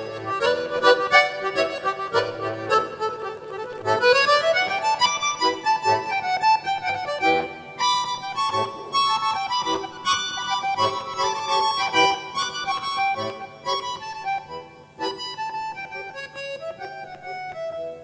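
Accordion playing an instrumental break in a Brazilian country-style song: a stream of rhythmic melody notes, with a quick rising run about four seconds in.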